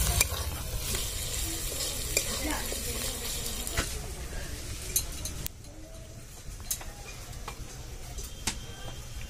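Chopped onion with garlic and ginger paste sizzling in oil in a metal kadai while a metal spatula stirs and scrapes it, with clicks of the spatula against the pan. About halfway through the sizzle gives way to a quieter stretch with a few light knocks.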